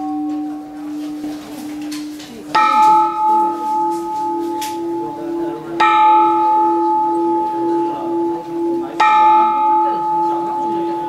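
Burmese temple bell struck three times, about three seconds apart, each strike ringing on over a low, pulsing hum. At first the ring of an earlier strike on a slightly lower-pitched bell is still dying away.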